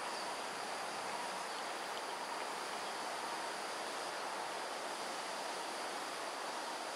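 Steady forest background noise with the continuous drone of insects and faint high steady tones, unchanging throughout.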